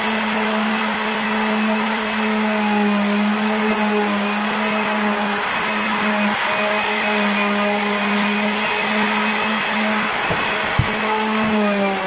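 Electric palm sander running steadily, its pad rubbing across a 3/4-inch plywood panel, giving a steady motor hum with a hiss over it. A single sharp knock comes a little before the end.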